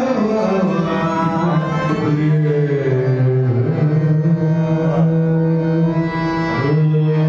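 A man's voice singing a devotional melody in long held notes that slide from pitch to pitch, rising again near the end.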